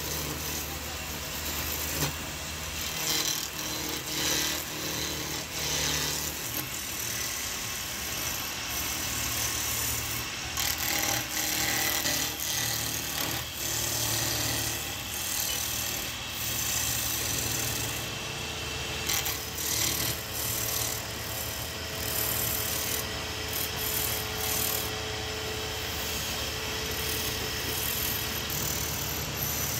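Wood lathe turning a wooden spindle while a hand-held chisel cuts into it: continuous scraping noise of the cutting edge peeling off shavings, swelling and easing as the tool is worked along, over the steady hum of the lathe's motor.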